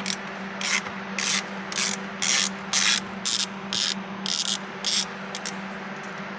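A socket ratchet clicking through about ten short strokes, roughly two a second, as a 10mm bolt on a car's centre console is wound out. A steady low hum runs underneath.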